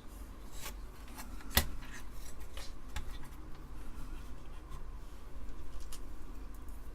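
Light workbench handling noises: scraping and rubbing with a few sharp clicks of small tools against a circuit board, the loudest click about a second and a half in.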